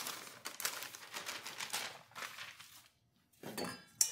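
Parchment paper rustling and crinkling as it is lifted and folded to pour sifted flour off it, with a brief pause, then a short rustle and a sharp knock near the end.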